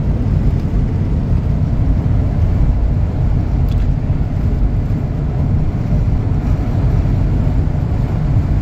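Steady in-cab rumble of a 1994 Ford F-150 pickup cruising on an open road: its 302 V8 running evenly under tyre and gusty wind noise.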